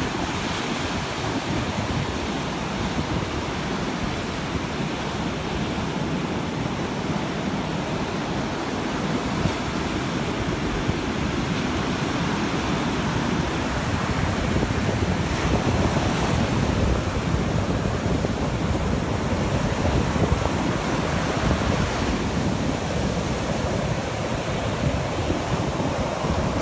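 Ocean surf breaking and washing up onto a sandy beach: a steady rush of waves and foam.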